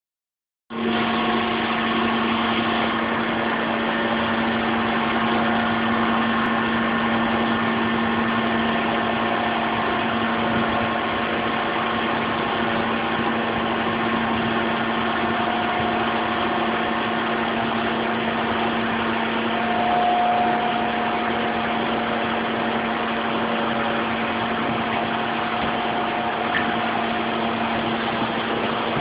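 Trash compactor running: a steady motor hum with several held tones, swelling briefly about two-thirds of the way through.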